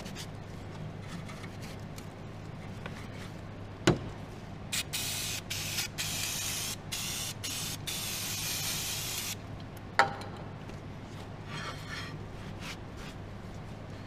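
Aerosol spray can with a thin straw nozzle spraying in a few short hisses that run into a longer spray of about three seconds. A sharp click comes just before and just after the spraying.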